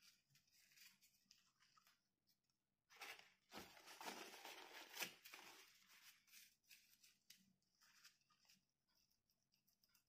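Faint rustling and scraping of a tissue being wiped over the parts inside an opened laptop, densest for about three seconds in the middle.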